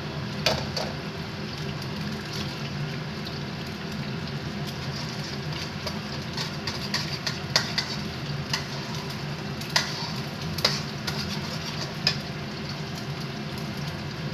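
Egg and chopped greens sizzling in a wok over a gas flame, stirred with a metal spatula that scrapes and clicks against the wok now and then.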